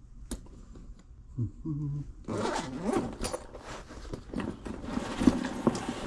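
Rasping, scraping handling noise made of many fast clicks, starting about two seconds in and running on, after a single click near the start and a short low hum of a voice.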